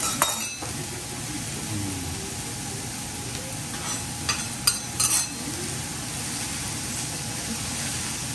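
Hiroshima-style okonomiyaki sizzling on a hot steel teppan griddle. A metal spatula clicks and scrapes against the griddle once near the start and in a quick run of about four strokes about halfway through.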